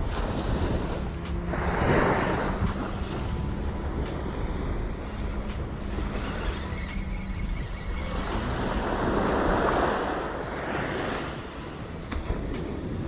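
Small ocean waves breaking and washing up a sand beach, swelling about two seconds in and again for a few seconds later on, with wind buffeting the microphone.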